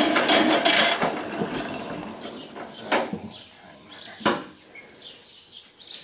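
Electric starter cranking a John Deere Model A's two-cylinder engine, which turns over but does not start; the owner blames a junk carburetor. The cranking cuts off about a second in and winds down, followed by two short sharp sounds and faint bird chirps near the end.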